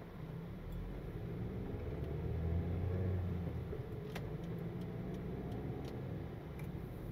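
Car driving, with steady engine and road rumble that swells a little around the middle. A short click about four seconds in.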